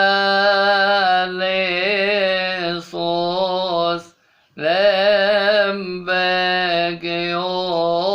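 Solo male voice chanting a Coptic Orthodox Lenten hymn in long held, ornamented notes, pausing for breath about four seconds in.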